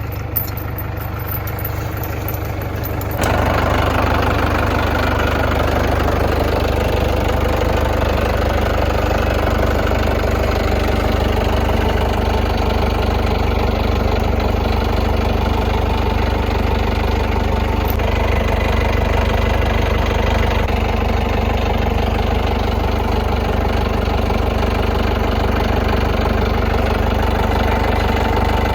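Tractor engine running steadily, getting louder about three seconds in and then holding an even pitch, as the tractor pulls a chained log.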